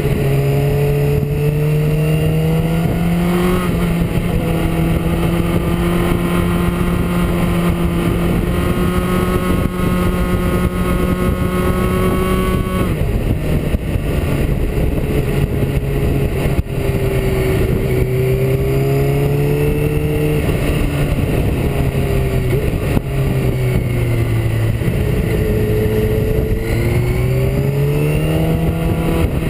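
Motorcycle engine running at road speed under a steady rush of wind. The engine note holds steady, drops sharply about halfway through, then falls and rises again with the throttle through the bends.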